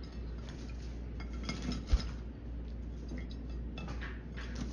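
Green-cheeked conure bathing in a shallow ceramic dinner plate of water: small splashes and the bird's claws and beak clinking on the plate, with one sharp knock about two seconds in.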